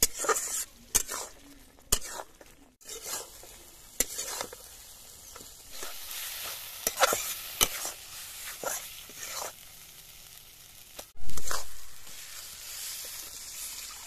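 Food sizzling in a pan while a spoon stirs and scrapes it, with irregular sharp scrapes and clicks. About eleven seconds in, a sudden loud burst of noise dies away within about a second.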